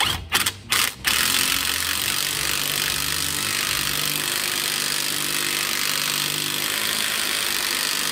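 Ryobi cordless impact wrench running down the pinion nut on a Ford 7.25-inch rear differential: a few short blips in the first second, then one long, steady run of about seven seconds.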